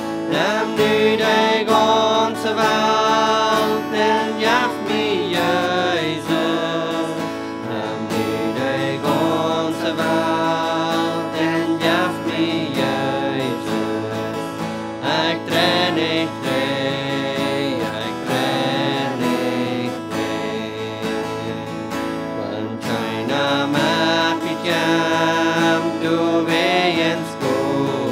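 A Christian hymn sung by a woman and a man into microphones, accompanied by a strummed acoustic guitar, with the song continuing steadily.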